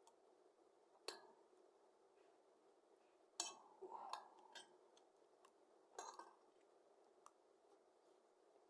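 Faint clinks of cutlery against a plate as meat is cut, about half a dozen scattered taps.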